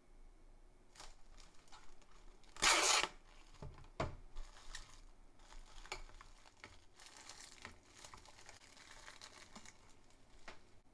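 Plastic cling film being handled: a loud, short tearing rip about three seconds in, a sharp knock a second later, then a spell of crinkling as the film is worked over the glass cups.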